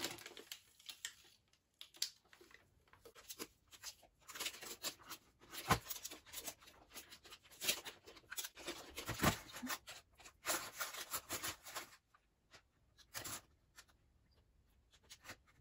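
Baking paper lining a metal baking tin crinkling and rustling in irregular bursts as the tin is handled and chocolate is spread over it, with a light knock about six seconds in. It goes quieter for a few seconds near the end.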